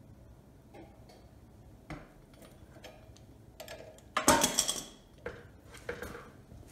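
Metal tools clinking and knocking at the puller bolt on a generator's rotor shaft as a socket and extension are fitted to it: scattered light clicks, then a louder metallic clatter about four seconds in, and a few more knocks near the end.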